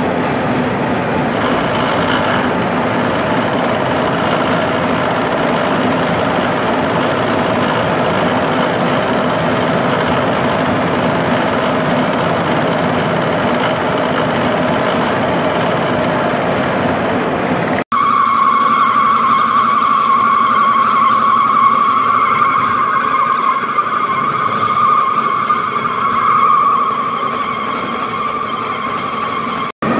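Milling cutter machining a Grade 5 titanium bar: a loud, steady rough cutting noise with a low hum beneath it. About two-thirds of the way through, the sound cuts to a steady high whine with overtones.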